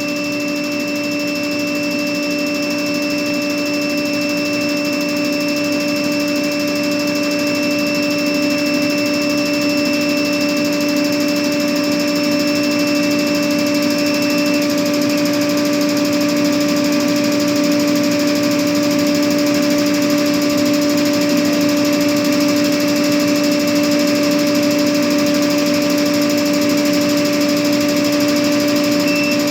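Air compressor running steadily with a constant mechanical hum. A thin high-pitched whine over it cuts off about halfway through and comes back near the end.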